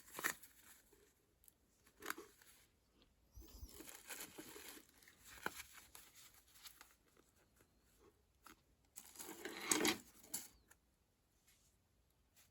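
Packaging rustling and crinkling in short, scattered bursts as items are handled and unpacked from a box, with one louder, longer rustle about nine to ten seconds in.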